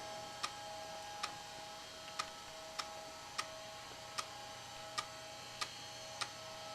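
Faint, regular clicking, about one sharp click every three quarters of a second, over a faint steady electronic whine.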